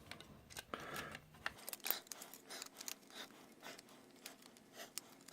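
Faint, irregular plastic clicks and scrapes from the shell pieces of an Xbox One controller being handled and pressed back together.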